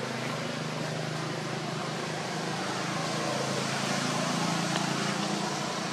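A steady low engine-like hum under an even background hiss, with no sudden sounds.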